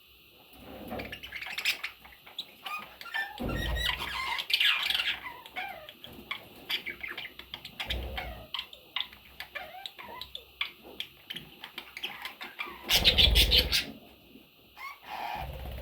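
Budgerigars chirping and chattering, with short squawks and many quick clicks. A few low thumps come through, the loudest about 13 seconds in along with a burst of calls.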